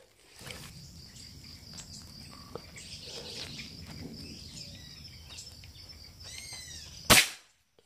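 Outdoor insect chirring and a brief bird call, then, about seven seconds in, a single sharp crack of a PCP air rifle firing a pellet.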